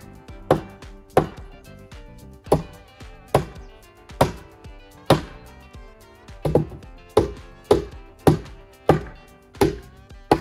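Repeated blows on wood, about a dozen sharp strikes at an uneven pace, over background music.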